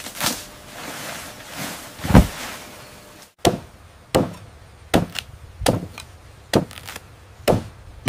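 Chopping: a run of sharp blows. A few uneven strikes come in the first three seconds, the loudest a little after two seconds in, then six evenly spaced strikes come a little faster than one a second.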